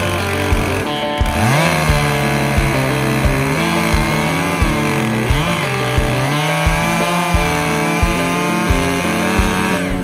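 Stihl 661 two-stroke chainsaw cutting into the base of a dead bur oak trunk to fell it. It revs up about a second in and holds at high speed in the cut, dipping briefly a couple of times under load. Background music with a steady beat plays underneath.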